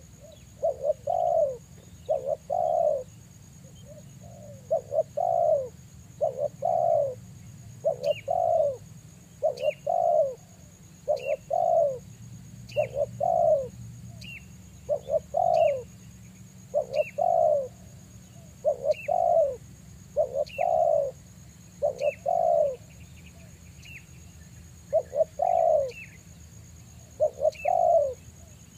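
Spotted dove cooing over and over, a low two- or three-note coo about every one and a half seconds, with a short pause near the end. Faint, short, high falling chirps come between the coos, over a steady faint high whine.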